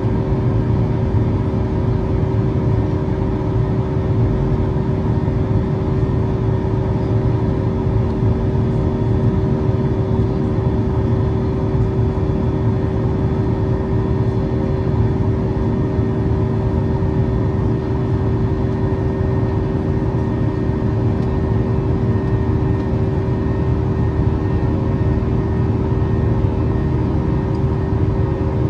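Boeing 737-800 in its climb-out, heard from the passenger cabin: the CFM56-7B turbofans and rushing air make a steady, loud drone with a low rumble and a constant hum on top.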